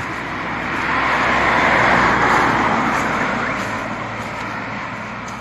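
A motor vehicle passing close by: road and engine noise swells over about two seconds, peaks, then fades away.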